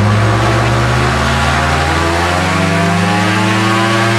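Suzuki car engine on a microlight trike, turning a new propeller, revving up steadily toward full throttle, its pitch rising as the revs climb from about 3000 to about 6000 rpm. The propeller's blade pitch has been reduced so the engine can rev out, and it is under full thrust load.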